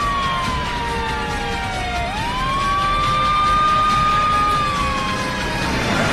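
Police car siren wailing. The tone holds high, slides slowly down for about two seconds, sweeps quickly back up, and holds before falling again near the end. Low vehicle noise runs underneath.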